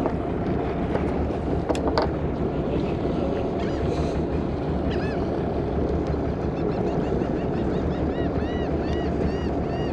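Steady low rumble of a fishing boat on the water, with two sharp clicks about two seconds in. In the second half a high, rising-and-falling chirp repeats about twice a second.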